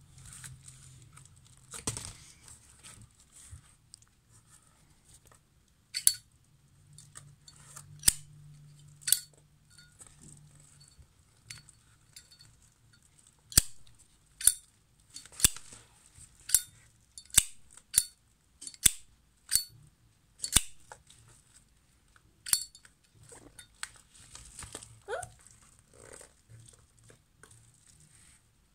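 Brushed-chrome Zippo 200 lighter's hinged metal lid being flipped open and snapped shut over and over: sharp metallic clicks, scattered at first, then about one a second through the middle, with soft handling noise between.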